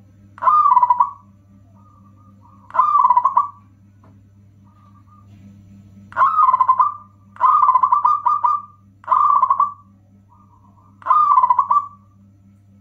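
Zebra dove (perkutut) cooing: six loud bursts of fast, staccato coo notes, each under a second long and one to two seconds apart, with fainter cooing in between. A steady low hum runs underneath.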